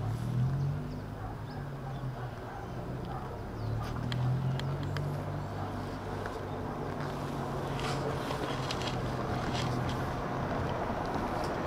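A motor vehicle engine running nearby, a low steady hum that swells a little after the middle, with a few small knocks and scrapes from the magnet-fishing rope being handled against the concrete railing.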